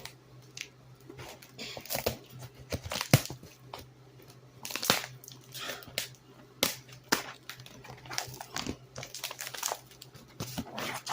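Cardboard shipping box and its packing being handled and opened: irregular tearing, crinkling and knocks, over a faint steady low hum.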